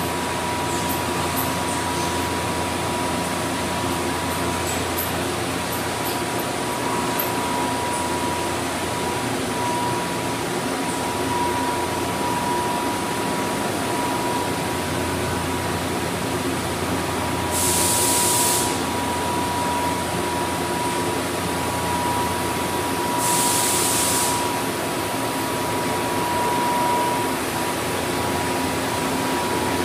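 Steady running hum of machine-shop equipment, motors and fans, with a thin steady whine. Two short bursts of hissing come about two-thirds of the way through, a few seconds apart.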